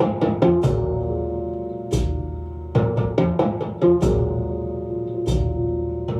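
Recorded music played over hi-fi loudspeakers: a drum-heavy percussive track. Quick runs of drum strikes and a few heavy deep hits sit over sustained pitched notes.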